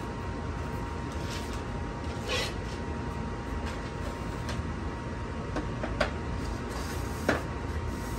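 Foam RC airplane parts and plastic packaging being handled on a table: a short rustle about two seconds in, then two sharp knocks near the end as parts are set down, over a steady low background hum.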